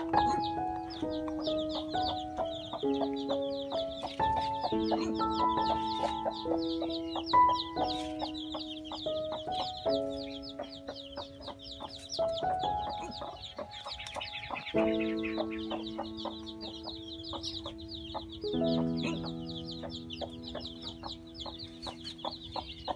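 A brood of young chicks peeping constantly in a dense chorus of quick, high chirps, over background music of slow held notes.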